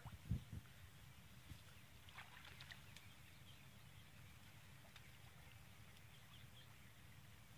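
Near silence with a faint steady low rumble. A few dull low thumps come about a third of a second in, and faint high chirps a couple of seconds later.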